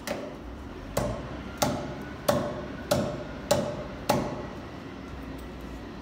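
Pine log debarking machine running with a steady low hum, with seven sharp, briefly ringing knocks about every 0.6 s that stop about four seconds in.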